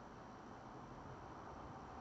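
Faint, steady room tone with a light hiss; no distinct sound stands out.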